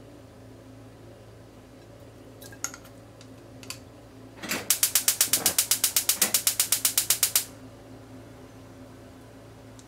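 Gas hob's spark igniter clicking rapidly and evenly, about ten clicks a second for about three seconds, as the burner is lit under the frying pan. A few light clicks come before it.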